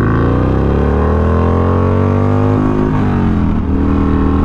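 Harley-Davidson Iron 883 Sportster's air-cooled V-twin through a Two Brothers Racing Comp S stainless 2-into-1 exhaust, accelerating hard. Its pitch climbs steadily, revving up to the redline, then falls over about a second from about two and a half seconds in and settles at lower revs.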